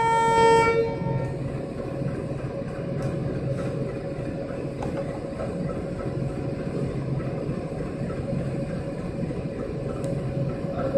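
Diesel train horn sounding for about a second, then the diesel engine running steadily with a low hum.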